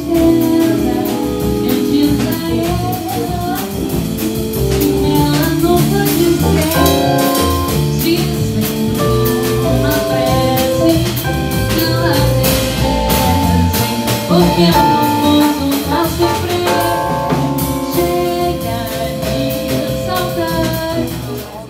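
Live jazz combo playing: a woman singing over piano, electric bass and a drum kit.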